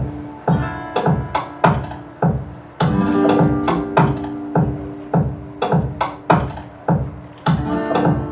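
Rhythmic music: drum strokes about two to three times a second over held, ringing pitched notes.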